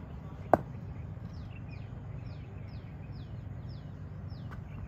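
A single sharp crack of a cricket bat striking the ball, about half a second in and the loudest sound. Then a bird calls a run of short chirps, each sliding downward, about three a second, over a steady low outdoor hum.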